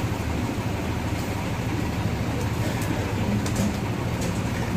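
Large bus engine idling, a steady low rumble.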